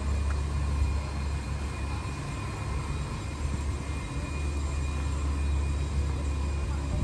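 Low, steady rumble of city street background noise that eases briefly midway, with faint steady tones above it.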